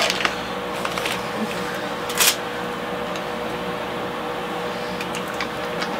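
Steady room hum with a faint constant tone, a few light clicks, and one sharper click about two seconds in.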